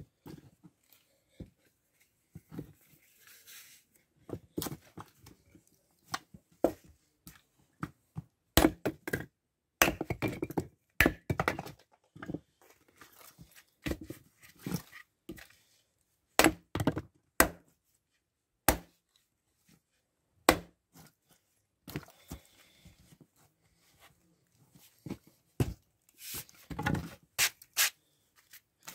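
A Fiskars X17 splitting axe strikes dry firewood on a chopping stump again and again, each blow a sharp crack or knock. Split pieces clatter onto the ground and onto each other, and the next piece is set down on the stump between blows.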